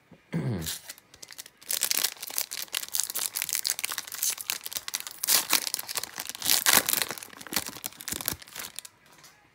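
Foil wrapper of an Upper Deck Allure hockey card pack being torn open and crinkled by hand: a dense, crackling rustle that starts about a second and a half in and dies away near the end.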